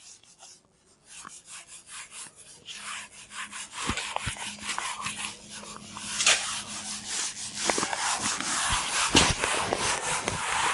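A handheld eraser wiping a whiteboard clean in rapid back-and-forth strokes: a scrubbing rub that starts about a second in and grows louder through the second half.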